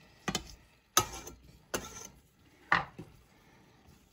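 A knife chopping chocolate in a stainless steel mixing bowl: four sharp knocks of the blade against the bowl, roughly a second apart, each with a short metallic ring.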